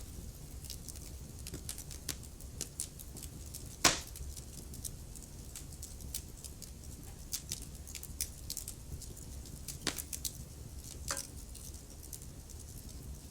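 Wood fire crackling in a fireplace: scattered small snaps and pops over a low steady rumble, with one loud pop about four seconds in and a couple more sharp pops later on.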